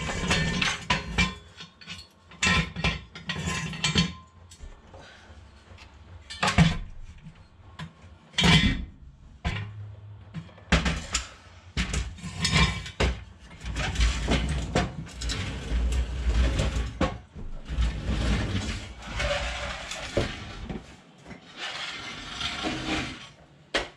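Rusty exhaust pipe of a Honda CR-V being pulled loose and slid out from under the car, metal clanking and scraping at irregular intervals, with a few sharper knocks.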